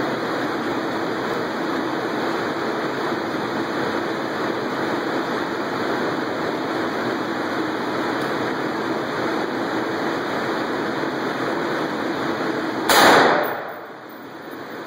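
One AR-15 rifle shot about 13 seconds in: a single sharp crack with a short ringing tail off the indoor range's walls. The background then dips for about a second. Before the shot there is a steady rushing noise.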